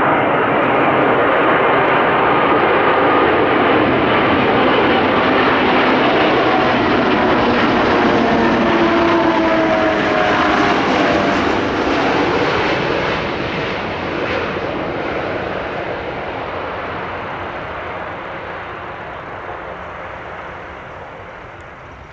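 Prototype Airbus A380 airliner's four jet engines on landing approach, a loud roar as it flies past with a whine that drops in pitch about ten seconds in, then fading steadily as it descends to the runway.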